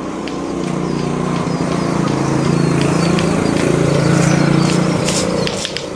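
A motor vehicle's engine passing close by: a steady hum that grows louder for about four seconds, then fades away near the end.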